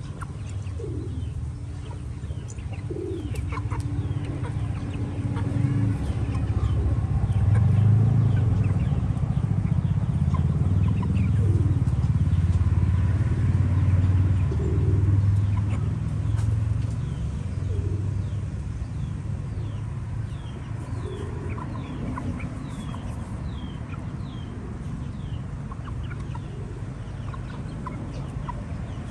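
Young chickens clucking and giving short high chirps while pecking at feed. Under them a low rumble swells up through the middle and fades away again.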